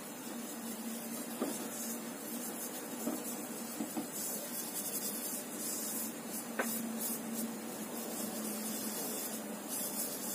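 Soft, steady hiss with light rubbing as fingers spread margarine around a non-stick frying pan on a gas burner at low heat, broken by a few faint ticks.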